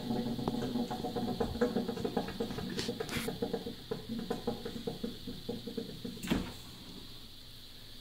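GE refrigerator making a rapid, irregular knocking patter like a bongo drum after its door is closed. The patter thins out over about six seconds, then a single louder thump comes and the knocking stops. The installer takes it for suction pulling on the condensate drain line as the sealed cabinet draws air.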